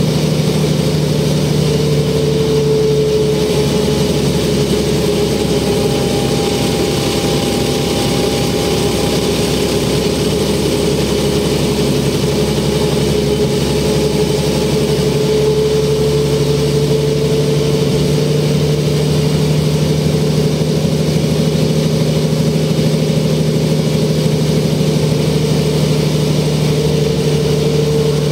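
Mercedes O405N city bus under way, heard from inside the cabin: the OM447h six-cylinder diesel's steady drone with a high whine from the ZF 5HP-500 automatic gearbox. The whine holds a nearly steady pitch, wavering slightly.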